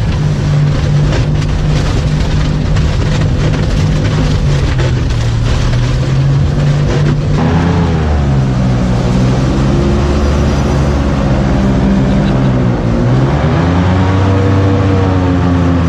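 Airboat engine and propeller running, its pitch dropping about seven seconds in and climbing again near the end.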